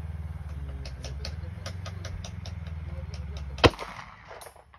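A single shot from a Colt Delta Elite 10mm Auto pistol, about three and a half seconds in: a sharp crack with a short echo trailing off. Before it, a steady low hum and scattered light clicks.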